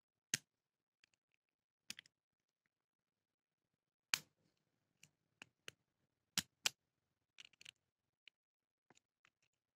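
Irregular sharp metallic clicks, a dozen or so with quiet gaps between them, the loudest about four and six and a half seconds in: a lock pick working the wafers in the keyway of a Verhulst AV Bruxelles wafer padlock, the pick touching the bottom rail of its restrictive keyway.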